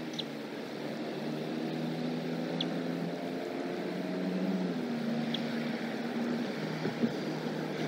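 An engine drones steadily, its pitch shifting a little around the middle. Three short, high chirps sound over it, and a brief knock comes near the end.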